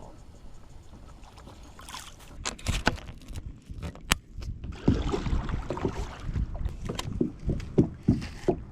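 Water sloshing around a kayak hull, with scattered knocks and clicks on the boat. It is quieter at first, and from about halfway it grows busier with several dull knocks.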